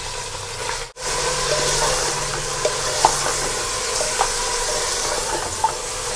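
Raw mutton pieces sizzling in hot oil while a wooden spatula stirs them, with a few light knocks of the spatula against the pan. The sound cuts out briefly about a second in, then the sizzling comes back a little louder.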